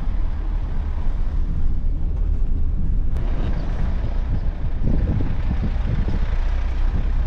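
Steady low rumble of engine and road noise inside the cab of a Sprinter motorhome driving along, with a brief click about three seconds in.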